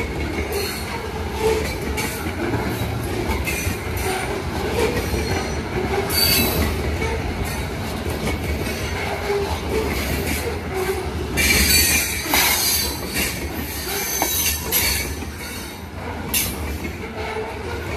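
Covered grain hopper cars rolling past close by: a steady rumble of steel wheels on the rails, broken by several bursts of high-pitched wheel squeal. The longest squeal comes about two-thirds of the way through.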